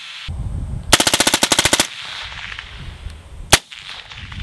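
Suppressed AR-15 rifle firing on full auto: one rapid burst of about fifteen rounds in under a second, then a single shot a couple of seconds later.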